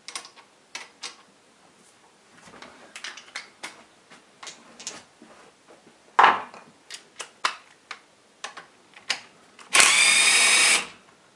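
Socket tool working the nuts on the rocker assembly of a 156FMI (Honda CG125-copy) pushrod engine's cylinder head: scattered metallic clicks and taps, a sharper knock about six seconds in, then near the end about a second of loud, steady whirring buzz as a nut is spun off.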